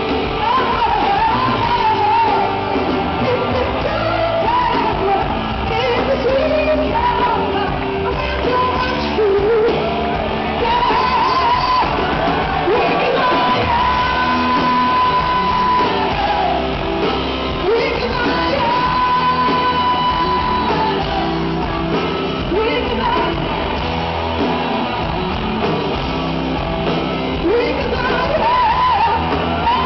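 Live rock band playing loud, with a female lead singer's voice over guitars and drums and long held high notes near the middle, heard from within the crowd through the festival PA.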